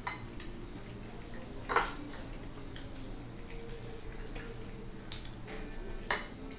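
Metal forks and knives clinking and scraping on ceramic dinner plates as two people eat, in scattered taps with a sharper clink about two seconds in and more near the end, over a faint steady hum.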